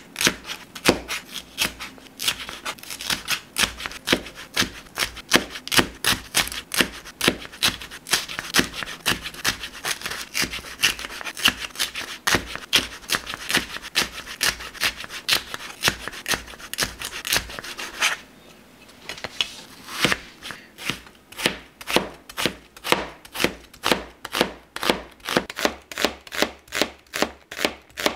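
Kitchen knife chopping on a plastic cutting board: a fast, dense run of knife strikes as bell peppers are sliced into strips. After a short pause about two-thirds of the way through, an onion is chopped with slower, even strokes, about two to three a second.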